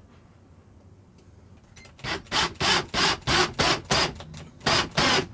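Cordless drill run in quick short bursts, about ten in three seconds, starting about two seconds in.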